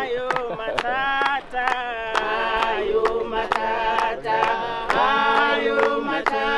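A group of men and women singing together, with sharp beats about twice a second that sound like hand claps. It is a welcome song.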